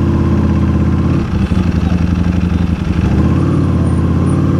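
Ducati Panigale V4 S's V4 engine pulling at low road speed, a steady low drone that dips briefly about a second in and again just before three seconds, then picks back up.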